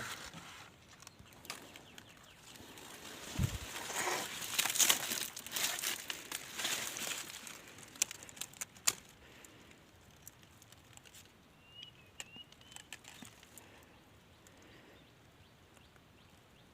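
Pigeons' wings flapping in bursts, loudest in the first half, mixed with rustling. Sharp clicks come about eight and nine seconds in.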